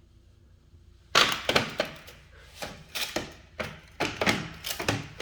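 A run of sharp, irregular knocks and clatters, hard objects striking or being handled, starting about a second in and repeating every half second or so.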